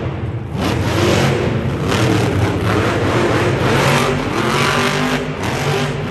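Monster truck's supercharged V8 engine revving hard during a freestyle run, its pitch rising and falling.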